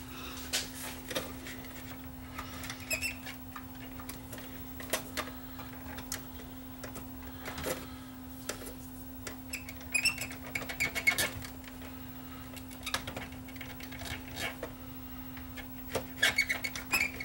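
Steady hum from the running tape transport of an opened Sony SLV701 VHS VCR, with scattered light scrapes and clicks from cleaning and handling parts of the tape path with a cotton swab. The clicks are busiest about ten seconds in and again near the end.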